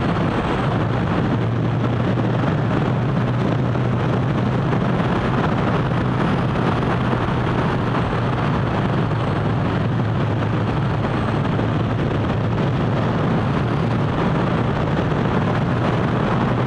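Motorcycle engine running at a steady cruise, under a constant rush of wind and road noise.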